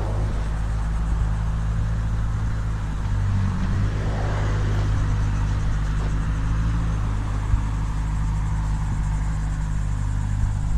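Bobcat skid-steer loader's engine running steadily with an even low hum.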